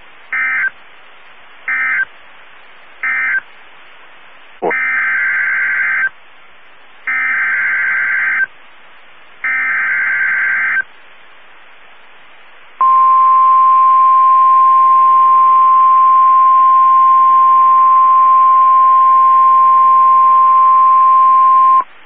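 NOAA Weather Radio Emergency Alert System signalling. First come three short SAME data bursts (the end-of-message code), then three longer, buzzy two-tone SAME header bursts announcing a new warning, with radio hiss between them. Then the steady 1050 Hz weather radio alert tone sounds for about nine seconds before cutting off.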